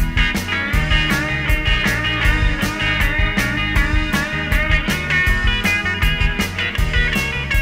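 Rock music with guitars and a steady drum beat.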